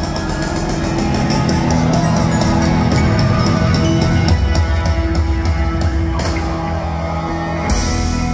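Live rock band playing loudly, with electric guitars, keyboard, bass and a drum kit keeping a steady beat.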